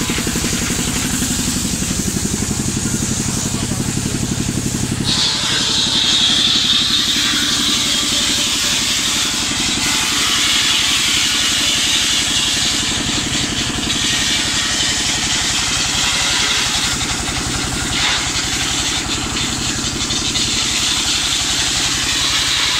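Large belt-driven circular saw ripping a wooden plank lengthwise. A steady high whine of the blade in the wood starts about five seconds in, over the evenly pulsing run of the engine that drives the saw.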